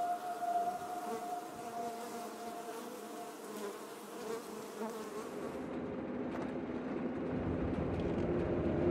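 Steady buzzing hum of a honeybee colony on its comb. About five seconds in it fades and a low rumble of a car driving on a dirt track builds up, growing louder toward the end.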